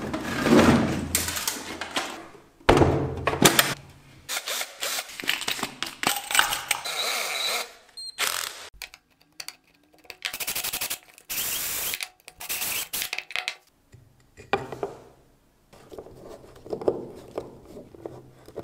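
Cordless drill boring holes into a pine block in short bursts, amid knocks and clatter of tools being handled.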